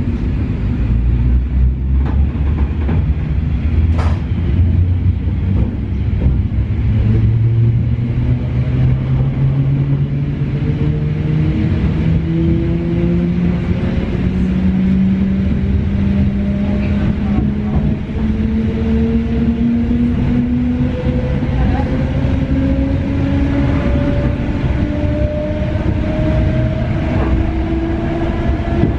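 EN71 electric multiple unit accelerating away from a station, heard from inside the passenger car. The running gear gives a steady low rumble, while the traction motors whine, rising steadily in pitch as the train gains speed.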